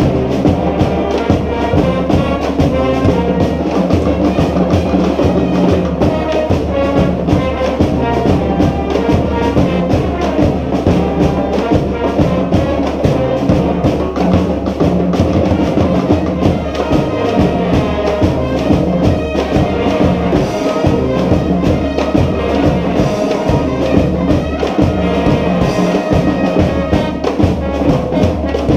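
Brass band of trumpets, trombones and other horns playing a New Orleans-style brass-band tune together over a steady drum beat.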